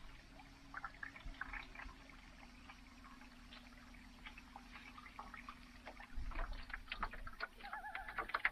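Faint water trickling and lapping, with scattered small clicks and splashes, over a low steady hum; a brief wavering tone near the end.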